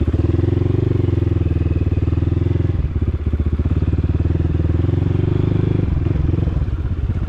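Dirt bike engine running at low speed with a rapid, even pulsing beat, its note dipping briefly about three seconds in and again near six seconds.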